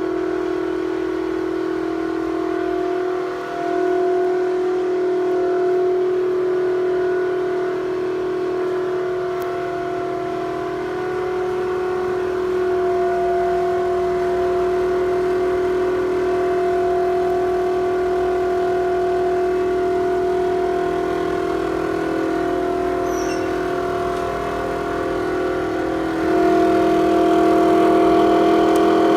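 A Toshiba ventilation fan making a loud, abnormal droning hum, steady with a slightly wavering pitch, a sign that the fan is faulty. It dips briefly about three seconds in and gets louder near the end.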